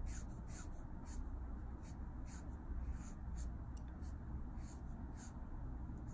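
Copic marker nib stroking across Bristol paper: a series of short, scratchy strokes at an irregular pace, about ten of them, over a faint low hum.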